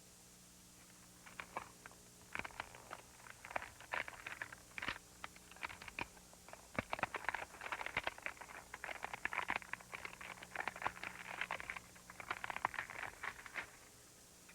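Irregular crackling and rustling, many small clicks, starting about a second in and stopping near the end, over a steady low hum.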